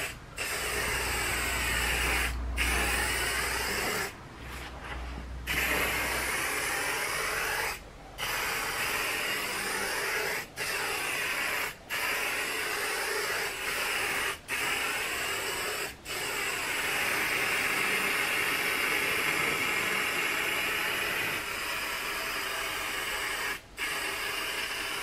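Aerosol can of blue gloss spray paint spraying in long steady hisses, broken by about eight short pauses as the nozzle is let go and pressed again.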